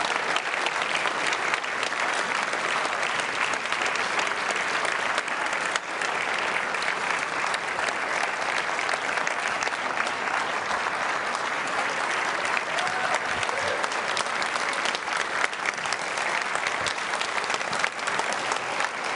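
A large audience applauding, dense steady clapping that goes on without a break.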